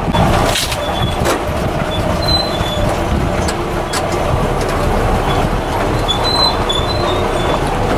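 A vehicle driving over a rough dirt hill road: steady engine and road rumble with the body and roof rack rattling and clattering over bumps, and a few brief high squeaks.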